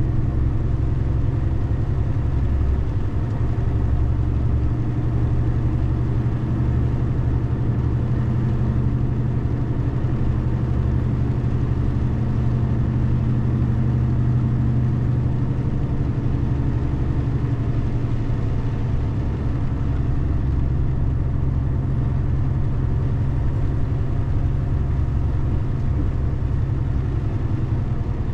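A car being driven: steady engine and road noise, a constant low rumble with faint engine tones drifting slowly in pitch.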